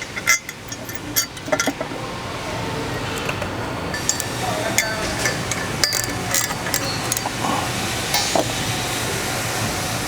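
Metal tools and parts clinking and tapping against each other as the swivel is worked on by hand: a string of sharp, irregular clicks, busiest in the first couple of seconds and again midway, over a steady low hum.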